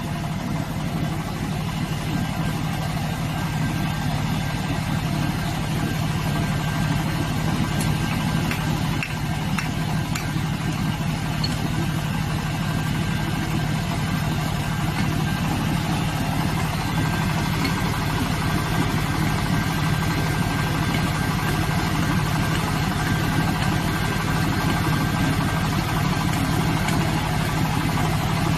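Core drilling rig's engine running steadily, a constant low hum with no change in speed.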